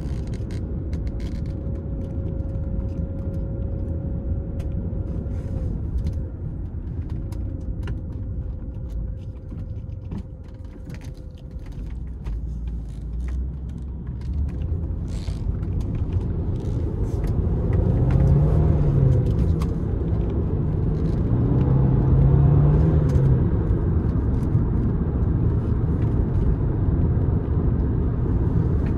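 Audi 2.7-litre twin-turbo V6 heard from inside the cabin over road and tyre noise, running at light throttle at low revs and then accelerating. From a little past halfway it gets louder and its note rises, dips briefly, and rises again as the car speeds up through the gears.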